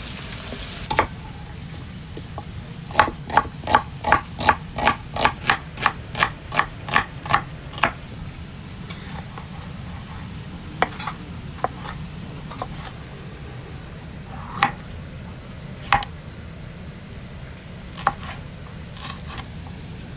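Kitchen knife chopping tomato and cucumber on a wooden cutting board. A quick run of about fifteen cuts comes at roughly three a second, then single cuts follow a second or two apart.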